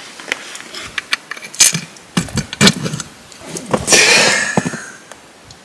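Sharp metallic clicks and clinks of a steel bolt and nut being handled and fitted into the cleat of a snow groomer's steel track. About four seconds in comes a louder rush of noise lasting about a second.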